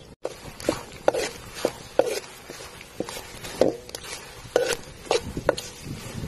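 A series of sharp knocks, about two a second and slightly uneven, each with a short ring.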